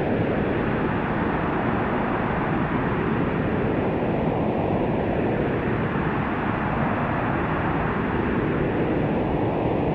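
Synthesized white noise, filtered to cut the highs above about 4 kHz, with an auto-filter slowly sweeping a dip up and down through the middle every few seconds, giving a rising and falling rush like wind or surf.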